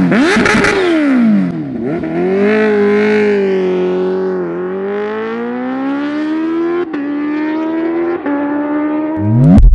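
Supercharged inline-four engine of a Kawasaki Ninja H2 revved in sharp blips, then pulling away with a steady held note that dips briefly about four and a half seconds in. Near the end a loud rising swell, the loudest moment.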